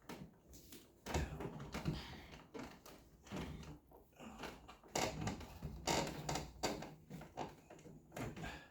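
Irregular clicks, scrapes and rustles of hands working the wires in a wall switch box, including a plastic wire nut.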